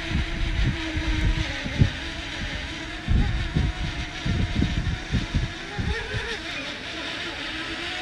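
Strong wind buffeting the microphone in irregular gusts, over the steady high buzz of a DJI Mavic Mini's propellers hovering a few metres overhead; the buzz rises briefly in pitch about six seconds in as the drone fights a gust.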